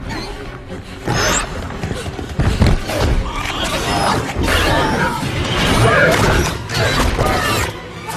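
Film action soundtrack: music mixed with a run of thuds and crashes.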